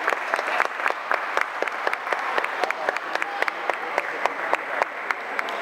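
Spectators applauding, with many separate hand claps heard over the general clapping.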